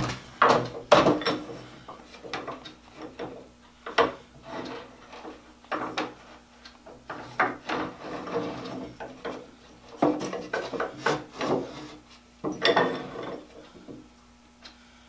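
Leg vise parts being handled and fitted on a wooden workbench: the wooden chop and its iron vise screw knock, clunk and scrape against the wood in irregular bursts.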